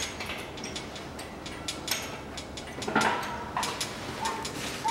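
Irregular metallic clicks and clinks of hand tools working on the bolts of a Daewoo Matiz's front engine mount. Two short high whines break in, the louder one about three seconds in.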